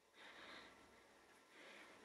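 Near silence, with two faint, brief hissing sounds, one just after the start and one near the end.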